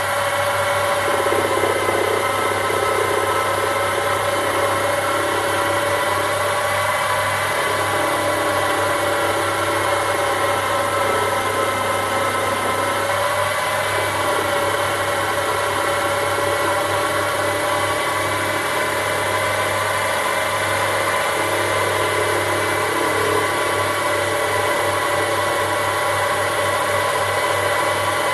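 Sherline micro lathe running steadily, its motor and spindle giving a steady whine of several tones over a low hum.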